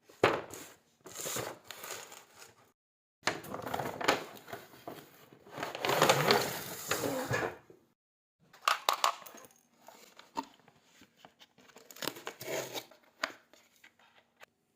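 Toy packaging being handled and torn open, crinkling and rustling in bursts with sharp clicks, broken by two short dead silences.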